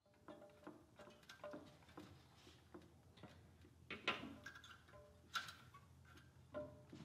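Faint metallic clicks and clinks of hands working the rocker arms on a Honda UT3 engine's cylinder head, some with a brief ring, with two sharper knocks a little after the middle, over a low steady hum.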